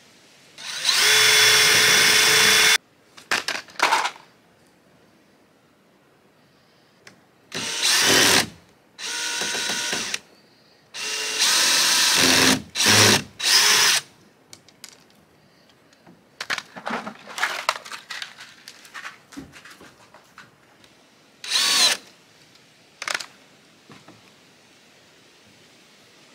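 Cordless drill driving screws into PVC pipe fittings in several runs: one of about two seconds, then a cluster of shorter runs, and two brief ones near the end. Small handling clicks fall between the runs.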